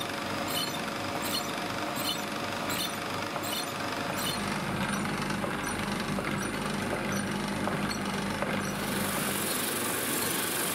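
A drill press fitted with a sanding drum runs steadily, with light clicks about every 0.7 s. Near the end a high hissing scrape begins as a pine board is pressed against the spinning sanding drum.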